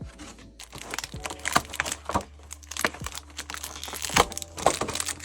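Trading-card box packaging being handled and opened by hand: irregular crinkling of wrappers with sharp clicks and taps of cardboard.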